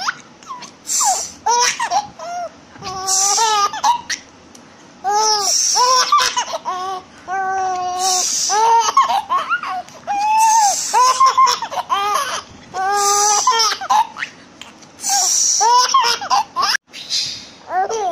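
A baby laughing in repeated high-pitched bouts of giggles and squeals, with short pauses between them.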